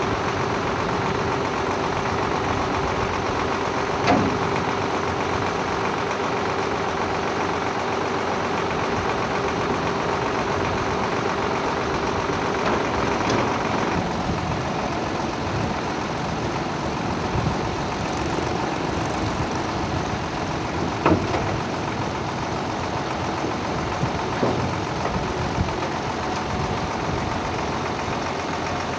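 Truck engine idling steadily, with a few short, sharp knocks over it.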